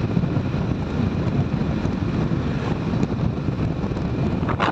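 Wind buffeting the microphone of a motorcycle riding along a highway, a steady low rumble over the bike's running and road noise.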